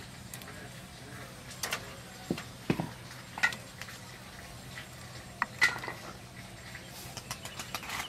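Kitchen knife scoring raw chicken leg pieces on a wooden cutting board: irregular knocks and taps of the blade against the board, with a run of small ticks near the end.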